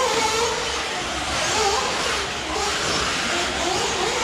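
Electric 1/8-scale RC truggies running on an indoor dirt track, with a wavering motor whine over a steady reverberant hiss.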